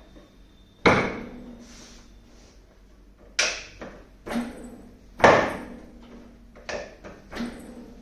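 About six sharp knocks at irregular intervals during a chiropractic adjustment, each with a short ringing tail; the first comes about a second in and the rest fall in the second half.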